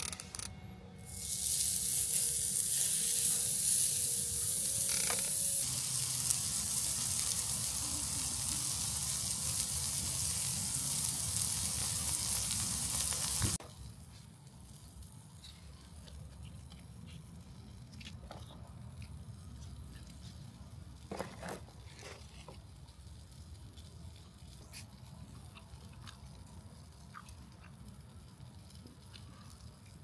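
Slices of pork belly sizzling loudly on a hot steel griddle plate over charcoal, starting about a second in as the meat lands, then cutting off abruptly before halfway. After that it is much quieter, with a few light clicks of chopsticks handling the cooked meat on a wooden board.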